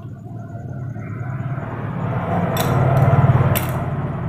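A vehicle engine passing by, swelling to its loudest about three seconds in and then fading, with two sharp metallic clinks near the peak.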